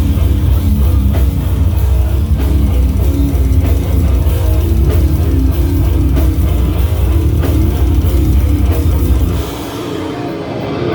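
A heavy metal band playing live, loud: distorted guitar, heavy bass and a pounding drum kit. About nine and a half seconds in, the bass and cymbals drop out and the guitar carries on.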